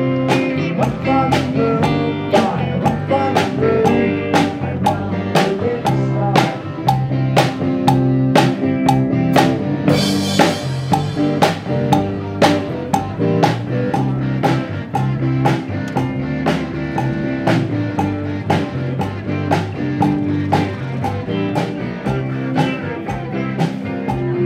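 Background music with a steady drum beat and bass, with a cymbal crash about ten seconds in.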